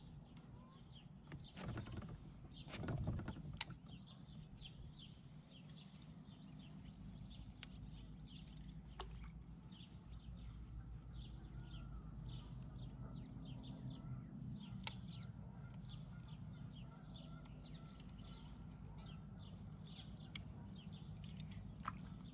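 Small birds chirping and twittering faintly and repeatedly over a low steady rumble, with a few single sharp ticks and a brief louder rustle about two to three seconds in.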